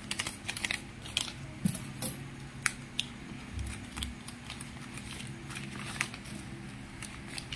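Folded paper banknotes being unfolded, flattened and counted by hand: irregular crinkling and rustling of the bills, with a few sharper crackles, over a steady low hum.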